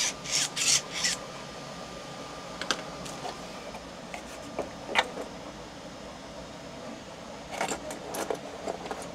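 Short clicks and rattles of plastic and small metal parts as a 3D-printed magnet dispenser pen and its metal rod are handled and set down on a wooden bench: a quick run of rattles at the start, a few lone clicks, and another brief run of rattles near the end.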